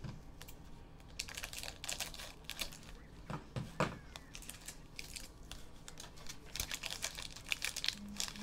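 Irregular light clicks and taps with faint rustling: trading cards and their plastic packaging being handled.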